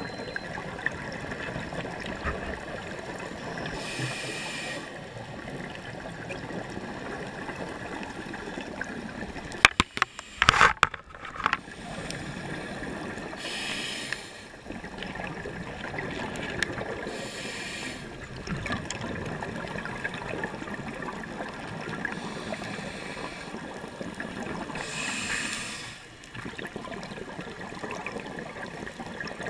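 Underwater ambience picked up by a camera in a dive housing: a steady crackling hiss, with a diver's scuba exhaust bubbles rushing up in short bursts every several seconds. A few sharp knocks about ten seconds in.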